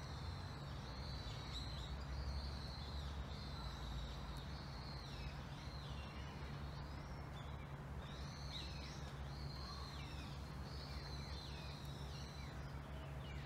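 Small birds chirping and twittering in many short, quick notes, over a steady low background rumble.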